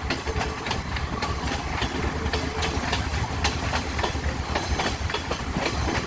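Passenger train running along the track: a steady low rumble of the carriages, with irregular clacks of the wheels over rail joints.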